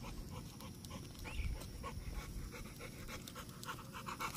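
XL American Bully dog panting in quick, even breaths, about three a second, cooling itself in the heat.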